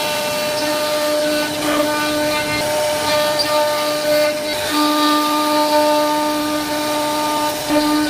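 CNC router spindle running with its bit engraving grooves into a wooden panel: a steady whine over the hiss of the cut, its lowest note fading for a moment twice.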